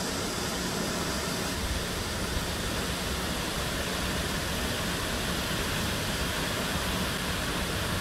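Large pump-fed artificial waterfall pouring steadily down a rock cliff: a continuous, even rush of falling water.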